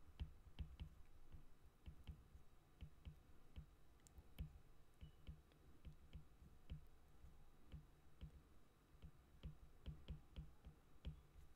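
Stylus tip tapping and clicking faintly on a tablet's glass screen while handwriting, in quick, irregular strokes of several a second.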